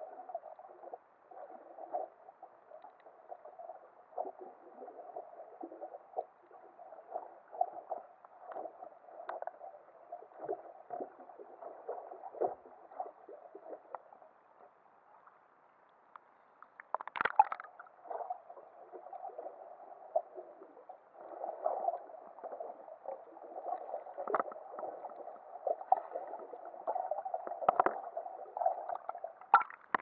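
Muffled sea water gurgling and sloshing against an underwater camera housing, with irregular knocks and splashes. A louder splash comes a little past halfway, as the camera reaches the surface, and more splashes follow near the end.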